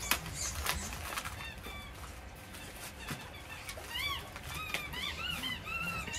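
Birds chirping, a run of short, repeated chirps that grows busier in the second half. In the first second or so, a parcel's paper packaging crackles as it is torn open and handled.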